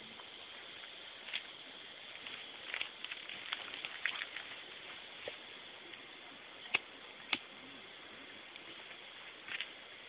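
A cigarette being lit and smoked: a burst of faint crackling about three to four seconds in and a few sharp clicks, over a steady low hiss.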